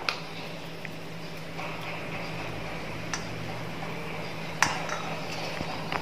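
Quiet kitchen room tone with a steady low hum, broken by four short, light clicks; the sharpest comes a little past the middle.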